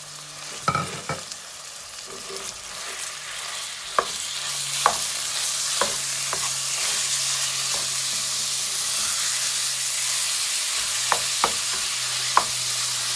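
Minced beef frying in olive oil with onions and garlic in a metal pan, sizzling as it is stirred and broken up with a spoon. The spoon clicks against the pan now and then. The sizzle grows louder about four seconds in as the raw mince starts to brown.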